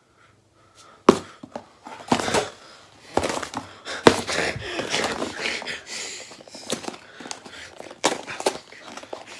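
A sheet of cardboard being snatched and handled in a tussle between two people: sharp slaps about a second in, near the middle and near the end, with rustling and scuffling in between.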